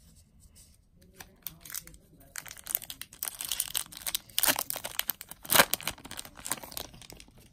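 Foil wrapper of a Magic: The Gathering booster pack being crinkled and torn open, with rustling that builds to sharp rips, loudest about four and a half and five and a half seconds in.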